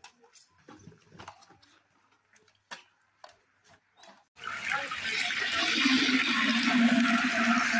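Faint clicks and rustles of aluminium foil trays being handled, then, about four seconds in, a loud steady hissing rush from a cooking pot over a fire cuts in and keeps going.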